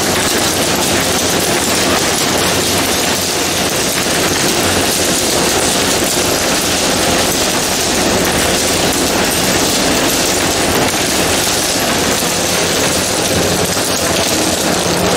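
Steady, dense clatter of frozen sliced squid pieces dropping off the end of a stainless wire-mesh freezer conveyor belt into plastic bins. The freezer machinery runs underneath.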